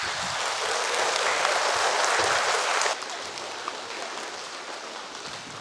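Audience of young children clapping, loudest for about three seconds, then dropping suddenly to a softer clapping that fades away.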